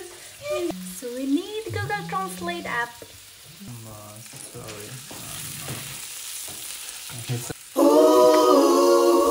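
Marinated chicken breasts sizzling as they fry in oil in a non-stick pan. Voices and laughter come first, and a pop song with singing cuts in near the end.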